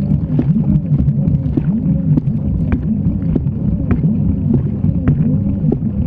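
Fisher & Paykel Gentle Annie top-loading washer agitating, heard from a camera down in the wash water. A low hum rises and falls in pitch over and over as the agitator swings back and forth, over churning water with scattered knocks.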